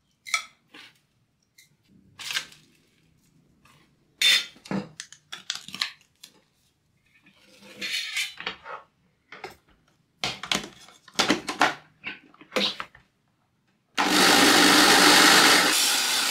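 Spoon and plastic clicks and scrapes as dried tiger nuts are scooped into a spice grinder jar and the jar is fitted together. About two seconds before the end an electric spice grinder starts abruptly and runs loudly, grinding the dried tiger nuts into flour.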